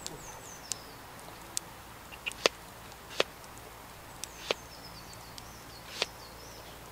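Knife slicing peeled potatoes over a plate, the blade tapping sharply on the plate as each slice comes off: about nine irregular clicks, loudest two and a half and three seconds in. A bird sings short high descending phrases in the background at the start and again near the end.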